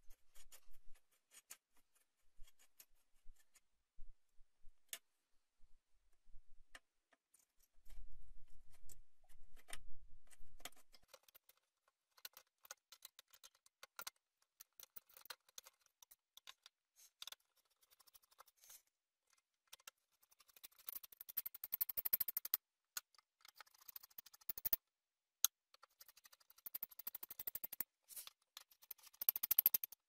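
Screwdriver tightening the four CPU heatsink screws on an HP Compaq dc7800 Ultra Slim Desktop: scattered faint metal clicks and scrapes, coming thicker over the last third. A brief low rumble about eight seconds in.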